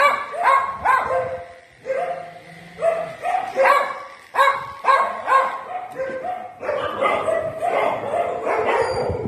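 A dog barking repeatedly in short, high yelping barks, about two or three a second, each rising sharply in pitch as it starts.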